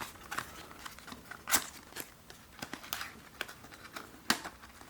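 Packaging of a phone box being handled: scattered light clicks and crinkles, with two sharper clicks about a second and a half in and near the end.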